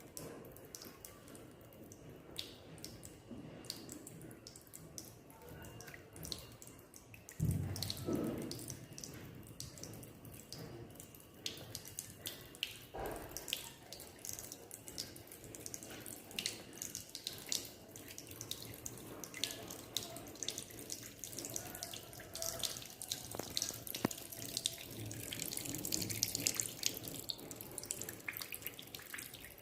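Trickling water from a tap, splashing and dripping, as a cockatiel bathes in it. There is a louder thump about seven seconds in.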